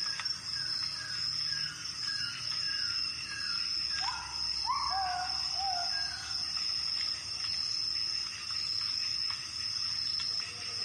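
Insects trilling in one steady, high, unbroken tone, with a bird calling over it. The bird gives a quick series of short falling notes for the first few seconds, then a few rising whistles about four seconds in.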